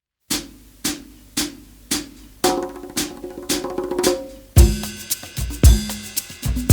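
Background music that starts a moment in with evenly spaced percussive hits about twice a second; about halfway through a full drum kit comes in with bass drum, snare and cymbals.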